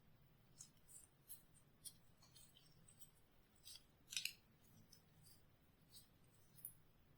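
Near silence with faint, scattered short clicks and light scrapes, about a dozen in all, the loudest a little over four seconds in.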